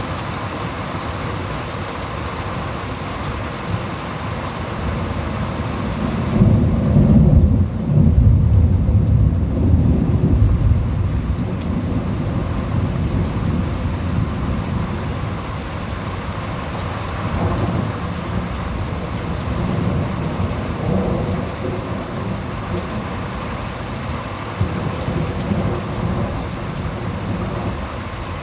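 Steady rain falling in a thunderstorm. About six seconds in, a loud, low roll of thunder swells and rumbles on for several seconds before fading. Weaker rumbles follow later.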